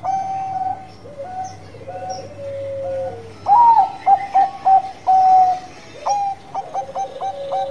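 Bangkok-type zebra dove (perkutut) cooing its bekur song: quick runs of short clipped notes broken by longer held coos. The loudest phrase comes about halfway through, and another starts near the end.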